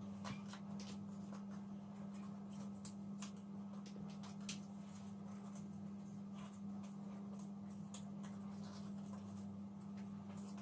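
Paper crinkling and creasing in short scattered clicks as a small square of craft paper is folded by hand, over a steady low hum.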